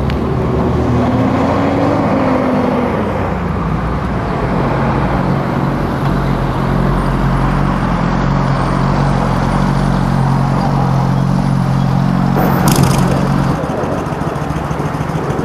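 Street traffic noise with a vehicle engine running steadily. A sharp noise comes about twelve and a half seconds in.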